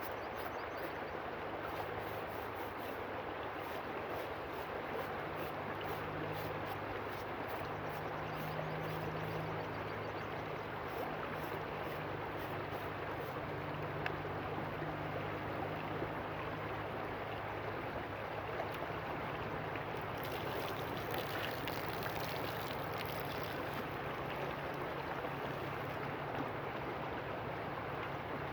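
River water rushing and gurgling steadily, with a low steady hum underneath.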